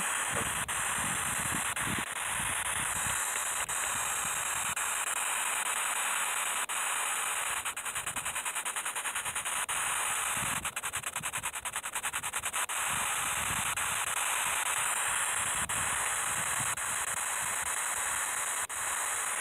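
Steady hiss of outdoor night background on a phone microphone, with scattered low rumbles on the mic and two short stretches of rapid faint ticking about halfway through.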